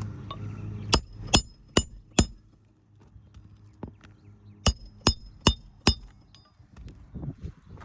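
Hammer blows driving roofing nails into a shingle: two sets of four sharp, evenly spaced strikes with a short metallic ring, the first set about a second in and the second about halfway through.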